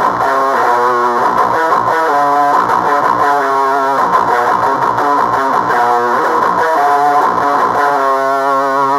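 Heavily distorted electric guitar played through an HM-2-style 'Swedish Chainsaw' distortion pedal with a JHS Bonsai overdrive also switched on: a riff of short, changing chords, then one chord left ringing near the end.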